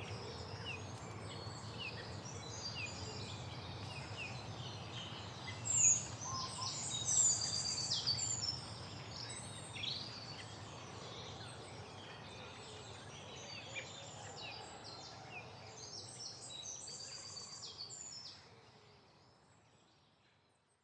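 Woodland birdsong: many short chirps and whistles from several birds over a low background hum. It is loudest about six to eight seconds in and fades out near the end.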